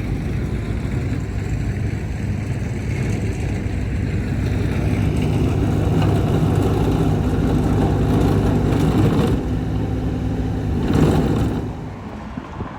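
A vehicle engine running with a steady low rumble; it swells briefly about eleven seconds in, then drops away sharply.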